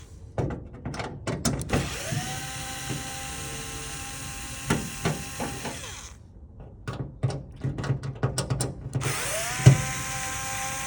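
A small electric motor spins up and runs steadily, stopping about six seconds in and starting up again near the end. Rapid clicks and knocks come just before each start-up.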